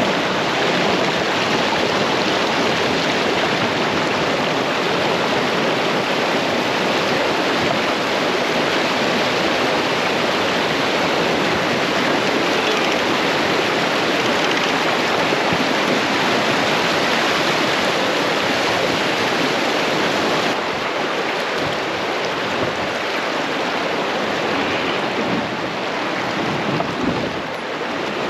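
Shallow creek rapids: water rushing and splashing over rocks around a kayak's hull, a loud, steady rush that drops a little about twenty seconds in.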